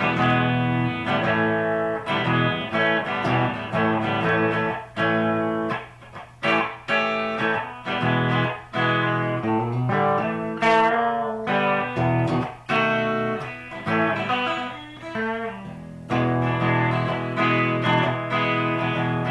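Custom T-style electric guitar played on its bridge humbucker split to a single coil (a Lace Alumitone humbucker tapped with a push-pull pot), mixing strummed chords and picked single notes with a few brief pauses.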